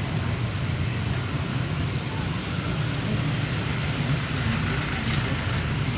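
Steady low rumble of road traffic with an even background hiss.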